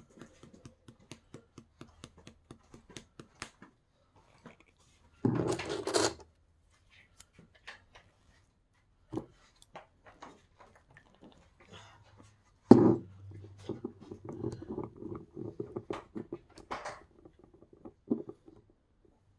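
Handling noise of nail polish bottles and plastic swatch sticks: a quick run of light clicks, then a short burst of rustling, and later a sharp knock followed by a few seconds of uneven rustling and clatter.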